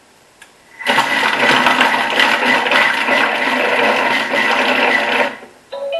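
Thermomix blade spinning at speed 4, chopping chunks of onion, carrot and garlic in olive oil; it starts about a second in, runs about four seconds and stops. A short electronic chime follows near the end.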